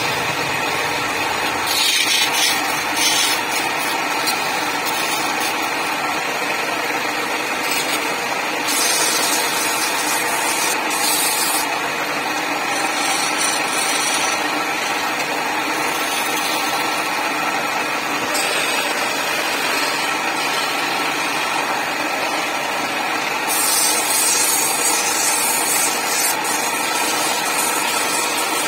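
Wood lathe running steadily with a constant motor whine while a turning tool scrapes the spinning wooden handle, the scraping coming and going in louder stretches about 2 seconds in, around 9 to 11 seconds, and from about 23 seconds on.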